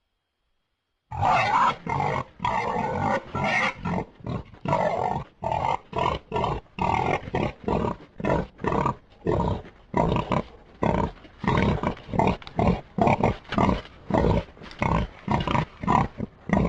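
Creature sound effect made from Hercules beetle recordings and used as the call of an extinct tapir: a long run of rapid rasping pulses, about two or three a second, starting about a second in.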